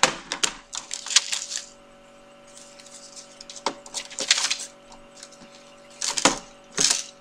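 Irregular plastic clicks and rustles as a Monster High Password Journal, a plastic toy journal case, is handled, in a few short clusters. A faint steady hum runs underneath.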